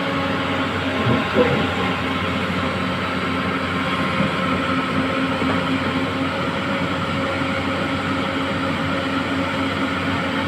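Volvo backhoe loader's diesel engine running steadily with a constant hum. A brief knock or clank comes about a second in.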